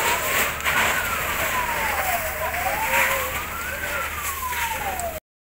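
An emergency vehicle siren wailing, its pitch sliding slowly up and down about once every three seconds, over steady background noise. It cuts off suddenly near the end.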